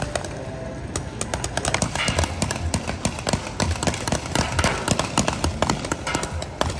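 Rapid, irregular pops of game marker guns firing, several shots a second and from more than one gun, during a shootout.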